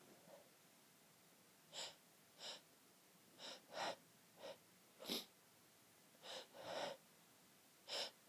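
A person's short, hitching breaths, about nine quick catches of air at irregular intervals, as she fights back an oncoming sneeze.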